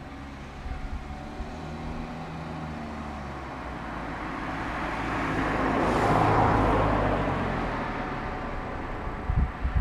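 A motor vehicle driving past, its engine and tyre noise swelling to a peak about six seconds in and then fading away. A few sharp knocks come near the end.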